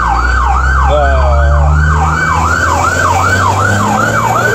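Fire truck siren on the rapid yelp setting, heard from inside the truck's cab, sweeping up and down about three times a second over the truck's engine running.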